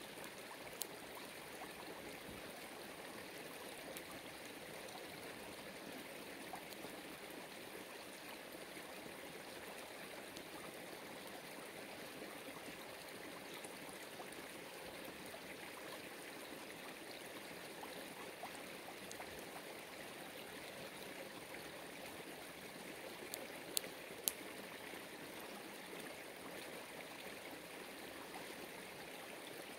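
Steady rush of running water, with a few faint clicks about a second in and twice about three-quarters of the way through.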